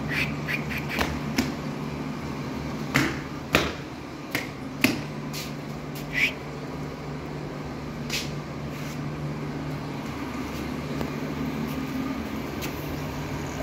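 A steady low machine hum, with a handful of sharp knocks and short high chirps scattered over it; the loudest knocks come about three, three and a half and five seconds in.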